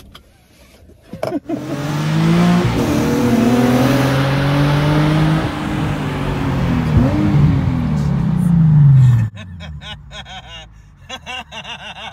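Nissan 350Z's V6 engine revving: after a few clicks it comes in about a second in, its note rising, holding, then falling away, and cuts off suddenly about nine seconds in.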